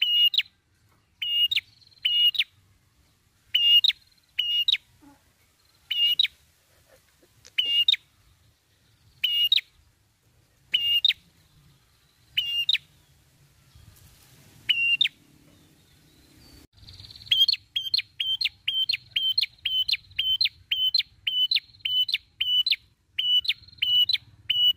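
Tailorbird (prenjak kepala merah) singing loud, sharp, high chip notes, singly or in pairs about a second apart. After a short pause they run into a fast, even series of about three notes a second.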